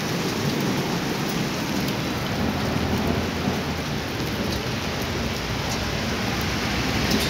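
Rain falling steadily, with a few sharp drop hits close by.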